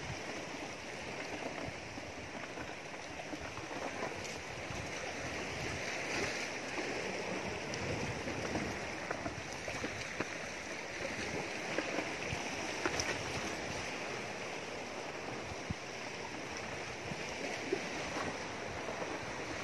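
Steady rush of sea waves washing among the rocks of a boulder shore, with a few faint scattered clicks.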